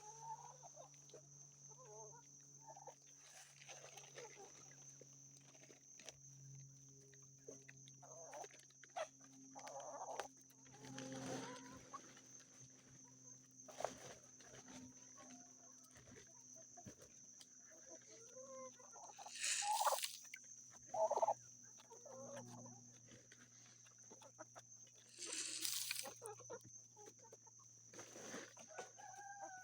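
Chickens clucking on and off around the feed, with a few louder squawks about two-thirds of the way through.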